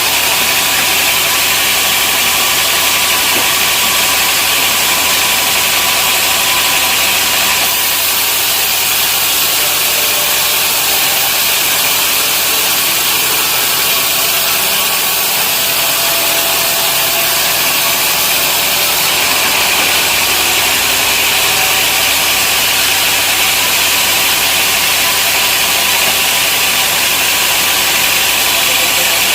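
Sawmill machinery running steadily: a loud engine-like drone under a strong hiss that shifts in strength about 8 and 19 seconds in.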